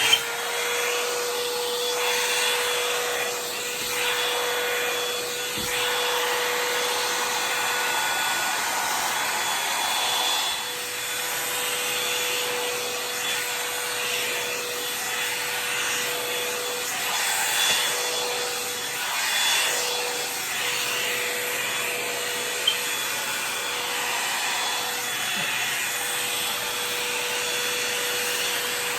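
Revlon hair dryer brush switched on at its high setting: its motor starts abruptly and runs with a steady whine and a rush of blown air. The level swells and dips slightly, with a single small click about three-quarters of the way in.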